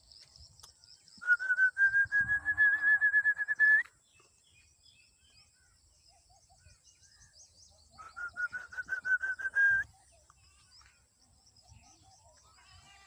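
A bird singing two loud, rapid trills of repeated notes, each lasting about two to two and a half seconds and rising slightly in pitch at the end, with faint high chirping behind.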